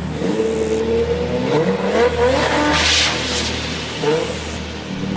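Basketball shoes squeaking on the court as players run and cut, a string of short, bending squeaks over a steady low hum.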